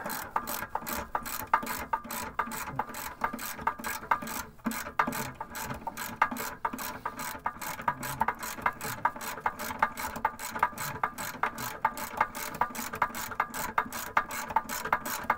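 Hand ratchet with a 10 mm socket clicking steadily, about four clicks a second, as it runs in the bolts of a rocker guard bracket, with a brief pause about four and a half seconds in.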